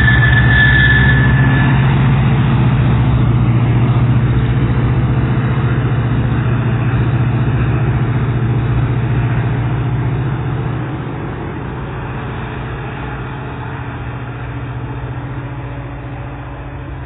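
A GO Transit diesel locomotive running steadily as its push-pull train pulls away from the station, with a thin high squeal from the train in the first two seconds. The engine sound fades as the train recedes, dropping off noticeably about eleven seconds in.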